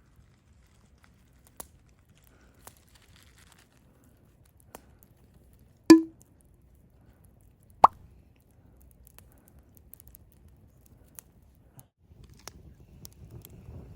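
Scattered light clicks and knocks, with two sharp, much louder knocks about six and eight seconds in, the second carrying a short falling tone; a faint rustling starts near the end.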